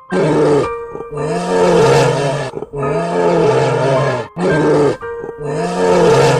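An animal calling loudly about four times, each call about a second long with a low pitch that rises and falls, over background music.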